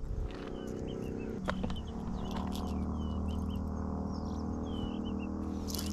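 Wild birds chirping, with many short calls scattered throughout, over a steady low hum.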